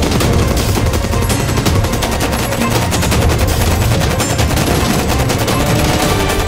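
Automatic rifle fire: a sustained, loud stream of rapid shots without a break.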